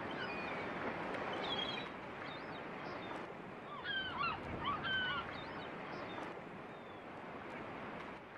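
Beach ambience: a steady wash of wind and surf with birds calling over it in short, sharp rising and falling cries, busiest about four to five seconds in.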